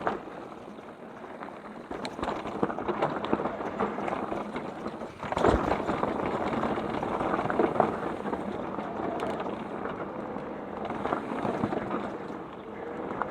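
Mountain bike tyres rolling and crunching over a rocky dirt trail, with steady rattling and clicking from the bike and a heavier knock about five seconds in.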